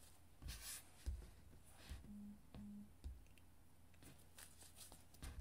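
Near silence with a few faint soft taps and rustles of tarot cards being handled on a tabletop.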